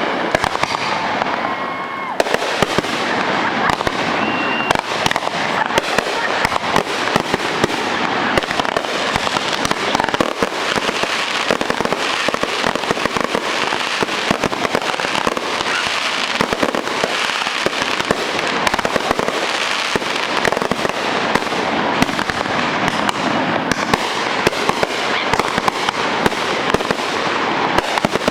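Fireworks display going off: a dense, continuous crackle of pops and bangs, with a few short whistles in the first seconds.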